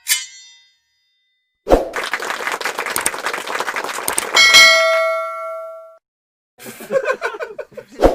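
A string of separate sound-effect clips with short gaps between them. A brief ringing click is followed by a hit and a dense clattering rattle lasting a few seconds. Then comes a bright bell-like ding that rings for about a second and a half, some irregular choppy sounds, and a short high ding at the end.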